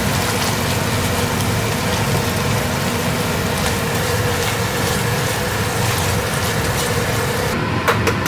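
Ground chicken and basil sizzling in a frying pan as it is stirred, over the steady hum of a kitchen ventilation fan. A couple of sharp clicks near the end.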